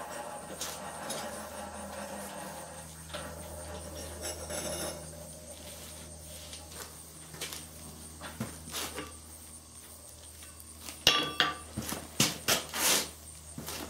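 Blacksmith's tongs and steel clinking and clanking while a hot workpiece is handled at the forge. Scattered clinks, then a quick cluster of loud ones near the end, over a steady low hum.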